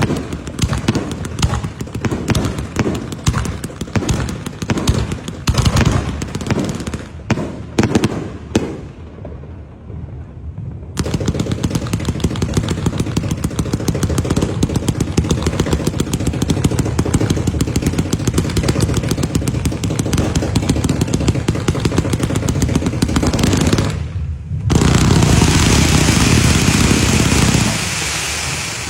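Firecrackers going off in rapid, crackling strings of bangs, dense and continuous from about eleven seconds in. Near the end a loud steady hiss takes over for a few seconds.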